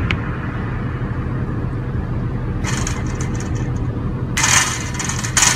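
Car engine idling with a steady low hum, heard from inside the car, with two bursts of hiss, one about halfway in and a longer one near the end.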